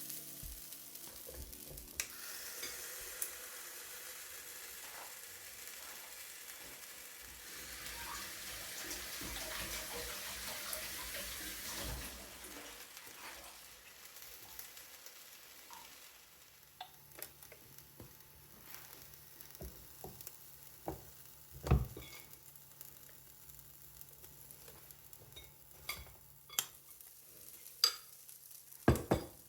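Chaffle batter sizzling and hissing in a waffle iron, strongest at first and then dying down. In the second half come scattered sharp clicks and knocks of kitchen utensils over a low hum.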